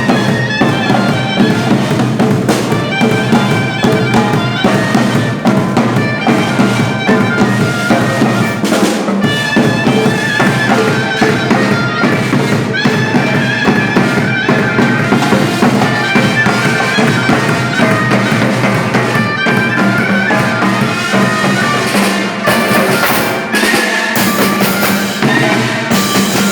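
Loud music played on a reed wind instrument with drums, going on without a break.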